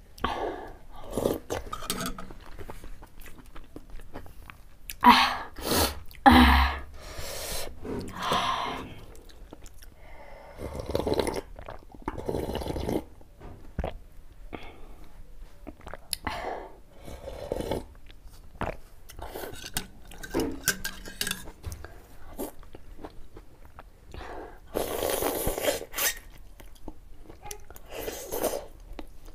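Close-miked mouth sounds of eating chicken thukpa noodle soup: irregular slurps of noodles and broth off a spoon, and chewing.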